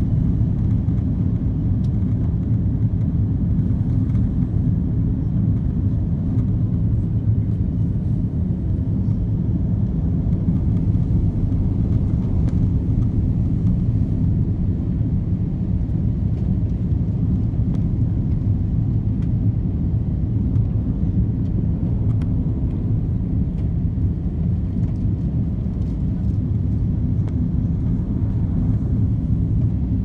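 Steady low rumble of cabin noise inside an Airbus A330-300 airliner on descent, heard from a window seat over the wing.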